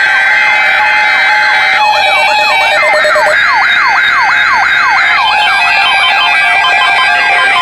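Electronic emergency-alert attention signal: steady alert tones layered with fast, repeating siren-like pitch sweeps, about three a second, the pattern shifting twice.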